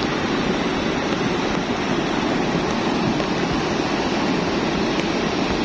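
Lahar (volcanic mudflow) from Mount Semeru rushing down its channel as a growing torrent: a loud, steady rumble of churning muddy water.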